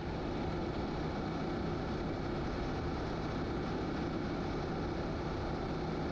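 Motorcycle cruising at a steady speed, its engine hum under an even rush of wind and road noise.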